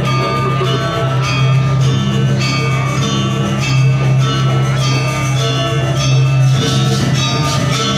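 Background music: a steady low bass note under regularly repeating bell-like mallet notes.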